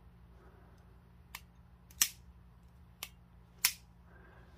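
Benchmade Mediator automatic knife's mechanism clicking as it is worked in the hand: two light clicks and two loud, sharp snaps, the snaps about a second and a half apart.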